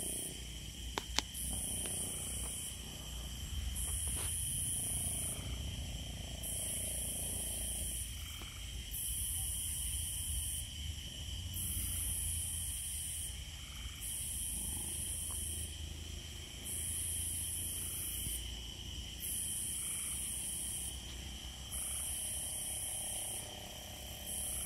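Night insect chorus: a steady high trill with a higher buzzing that pulses on and off about every two seconds, over a low steady rumble. Two sharp clicks come about a second in and about four seconds in.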